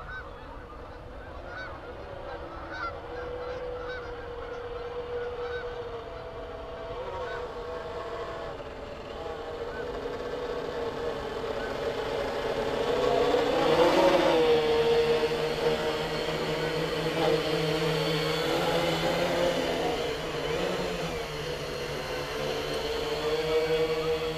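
Electric motors and propellers of a Lunar Module-style R/C quadcopter humming steadily in flight. The hum grows louder to its peak about halfway through, with a brief rise and fall in pitch there. Geese honk faintly in the first several seconds.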